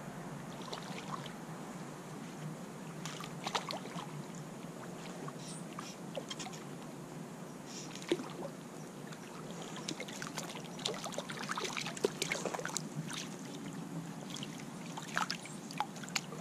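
Water splashing and sloshing as a hooked trout is played in and landed, with scattered small clicks and knocks over a steady hiss of flowing water. The splashes come thickest around the middle of the stretch.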